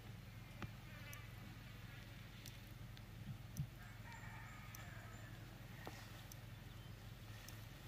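Flies buzzing faintly and steadily, with a single soft knock about three and a half seconds in.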